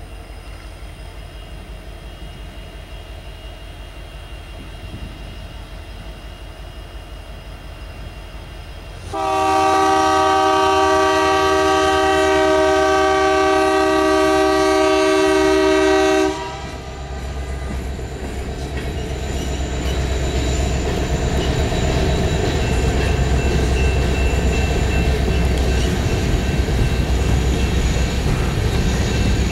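BNSF coal train led by EMD SD70MAC diesel-electric locomotives approaching with a low rumble, then the lead locomotive's air horn sounding one long chord of several notes for about seven seconds as a grade-crossing warning, cutting off abruptly. The rumble of the locomotives and hopper cars rolling past on the rails then builds and stays loud.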